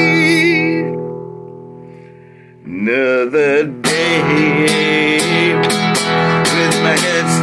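Acoustic guitar strummed under a man's singing. About a second in, the strumming stops and the chord rings and dies away. A short sung phrase with wavering pitch follows, and steady strumming resumes a little under four seconds in.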